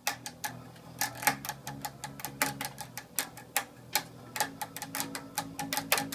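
Electric bass guitar being finger-plucked, its unamplified strings heard directly: a quick run of sharp string plucks and clicks, several a second, with faint low notes ringing under them.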